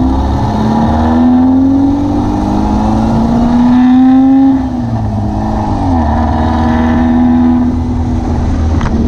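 VW beach buggy engine pulling under acceleration, its note climbing, dropping sharply at a gear change about halfway through, then climbing again.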